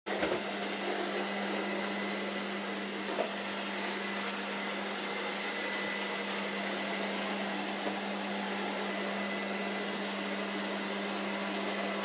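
Robot vacuum cleaner running: a steady motor whir with a constant low hum and a faint high whine.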